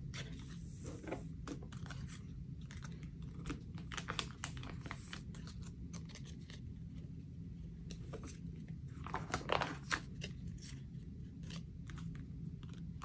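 Photocards being handled and slid into the clear plastic pockets of a binder sleeve page: light crinkling, rustling and small clicks of card and plastic, with a louder cluster of rustling about nine seconds in.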